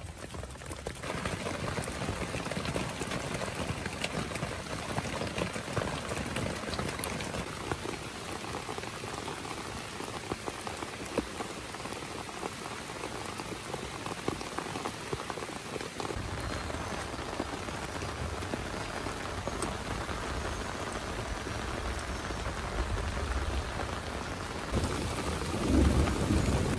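Heavy rain falling steadily on a nylon dome tent, grass and trees. A deeper rumble joins a little past halfway and swells louder near the end.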